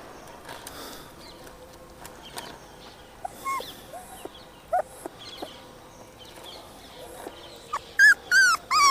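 Puppies whimpering: a few faint, short squeaks, then loud, repeated high-pitched whines starting near the end.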